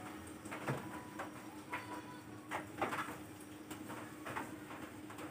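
Whiteboard eraser wiping across the board in short, irregular rubbing strokes, about eight of them. A faint steady hum lies underneath.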